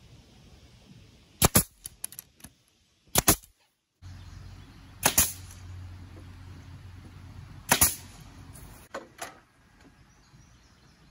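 Pneumatic brad nailer firing nails into pressure-treated wood framing: a series of sharp pops every second or two, several in quick pairs.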